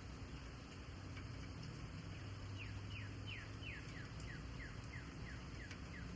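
A bird calling a run of about a dozen quick chirps, each falling in pitch, about three a second, starting a couple of seconds in, over a low steady hum.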